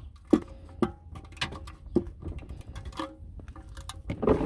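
A series of sharp clicks and knocks, roughly one every half second, from a hand tool tightening a part during an oil change.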